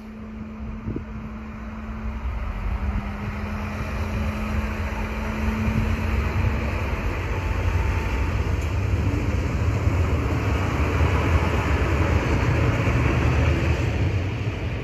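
Alstom Coradia LINT diesel multiple unit running through a station, its diesel engines and wheels on the rails growing louder over the first few seconds and then holding a steady rumble. A faint low hum runs under it through the first half.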